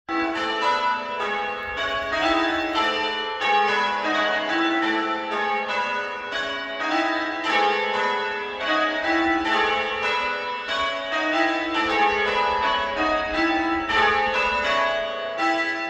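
Church bells of St George's Priory ringing: a steady, unbroken run of strikes on bells of different pitches, each note ringing on into the next.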